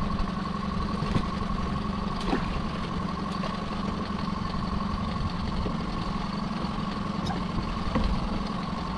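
Small fishing boat's outboard engine idling steadily, with a few light knocks from pot handling on deck.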